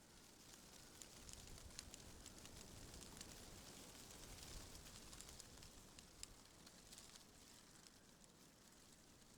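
Faint wind in tree leaves: a soft rustling hiss that swells for a few seconds and then eases, with many small crackling ticks from the leaves.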